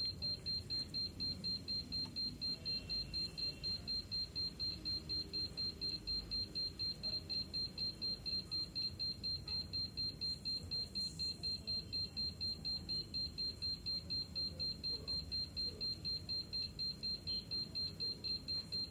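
Rapid electronic beeping from workbench electronics: one high beep repeated evenly about three times a second.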